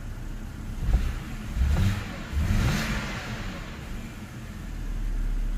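BMW N52 2.5-litre inline-six idling, heard from inside the car. A thump comes about a second in, and the engine speed briefly rises and falls back a couple of times. This is the intermittent idle jerk of the low-rpm misfire being diagnosed.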